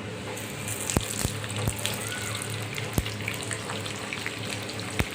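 French fries frying in hot oil: a steady sizzle with crackling, broken by a few sharp clicks.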